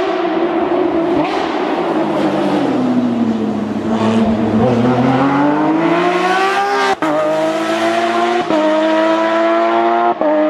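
Porsche 911 GT3's flat-six engine easing off and dropping in pitch, then accelerating hard with the revs rising, interrupted by three quick upshifts, each a brief dip in sound, about two thirds of the way in, a second and a half later, and near the end.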